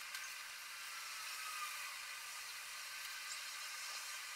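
Faint steady hiss with no music or voices.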